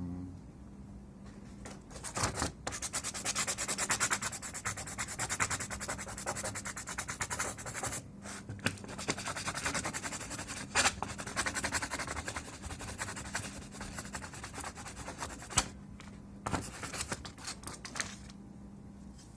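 A blade scraping in quick repeated strokes at the PS4 Slim's switch-button part, scratching away its surface. A few sharper clicks break in, and the scraping fades out near the end.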